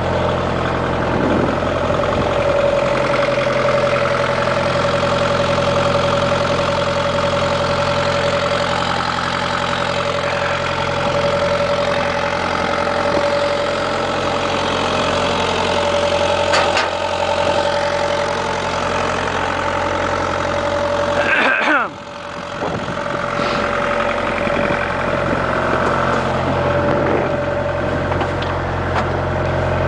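Bobcat mini excavator's diesel engine idling steadily at constant speed. About two-thirds of the way through there is a brief rattle and a momentary drop in loudness.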